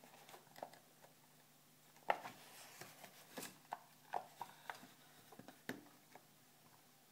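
Handling noise from a small boxed nixie clock being gripped and turned on a wooden desk: a scatter of light knocks and clicks as fingers and the box bump, the sharpest about two seconds in, over a faint steady low hum.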